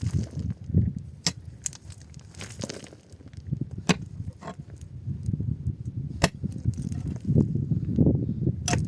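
Sharp knocks about every two and a half seconds over a low rumbling noise that grows louder toward the end.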